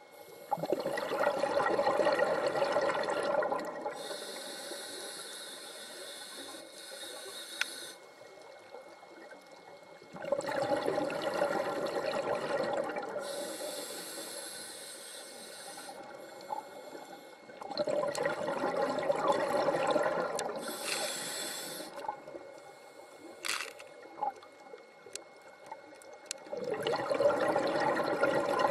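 Scuba diver breathing through a regulator underwater: slow cycles, each a long rush of exhaled bubbles followed by a quieter, higher hiss of inhaling. Four such breaths, about every eight to nine seconds.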